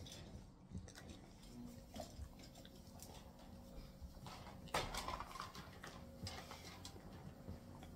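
An English bulldog faintly chewing and gnawing on a chew, with small scuffles and rustles of a puppy moving on a blanket. One louder knock about five seconds in.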